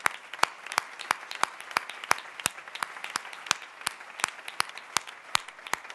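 Crowd applauding, with sharp individual claps standing out at an even pace of about three a second.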